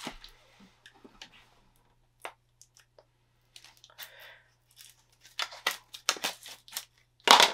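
A vinyl figure being pulled out of a Funko Soda can by hand: scattered short clicks and rustles of packaging, becoming a quicker run of sharper clicks about five seconds in.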